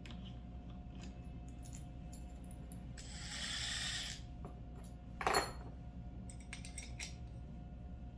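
Small metal mounting hardware (screws, T-nuts and aluminium bracket parts) clicking and clinking as it is handled. There is a brief rustle about three seconds in and a sharper clank a little after five seconds.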